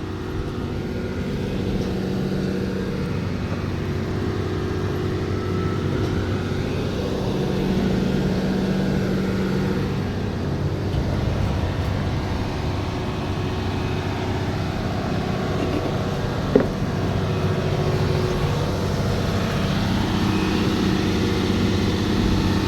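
Heavy diesel engine running steadily under load, with a single sharp click about sixteen seconds in.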